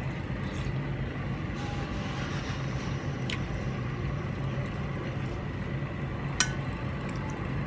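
Eating curry and rice by hand: quiet chewing and fingers on the plate, with two sharp clicks, one about three seconds in and one near the end, over a steady low background hum.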